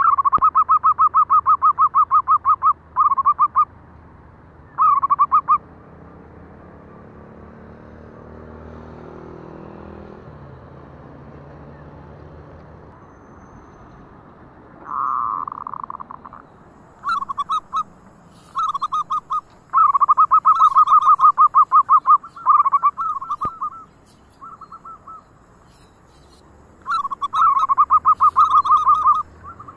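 Zebra doves (perkutut) calling: bouts of fast, pulsing coos, from under a second to about three seconds each. They come early on, pause for several seconds, then return more often in the second half, with higher, fainter chirps mixed in.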